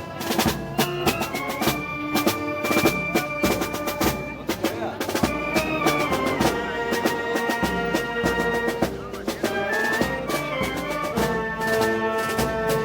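A brass band with drums playing Moros y Cristianos festival music: held brass chords that change every second or two over snare and bass drum strokes.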